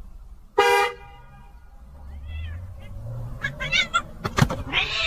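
A car horn gives one short, loud toot about half a second in. Cats then answer with meows that turn into louder, angry yowling toward the end.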